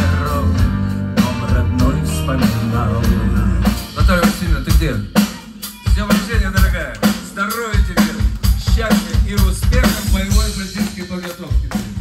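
Live rock band with electric bass, guitars, keyboards and drum kit playing. About four seconds in, the sustained playing gives way to separate accented drum hits as the song ends, with the audience cheering and clapping.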